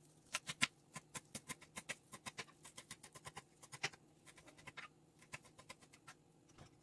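Kitchen knife chopping fresh parsley on a wooden cutting board: quick, sharp taps of the blade on the board, about five a second, thinning out to a few scattered taps in the second half.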